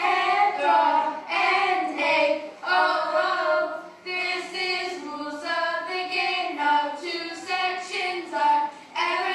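Children singing, with held, sustained notes.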